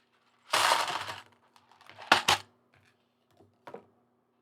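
Small plastic model-kit pieces rattling as they are sorted through, then two sharp clicks in quick succession and a fainter click near the end.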